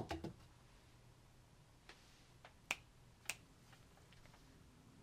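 Finger snaps: one right at the start and two more, about half a second apart, a little past the middle, over faint room tone.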